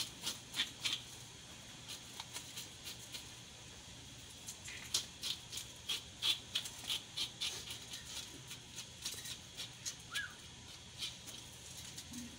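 Knife blade scraping the scales off a surgeonfish in quick repeated strokes, several a second, coming in bursts with a lull of about three seconds after the first second.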